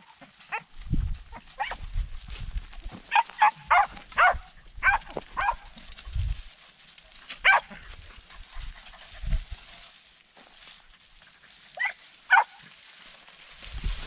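Podenco hunting dogs giving short, high yelps from the brush, some single and some in quick runs of three or four, as they work the cover to flush a rabbit.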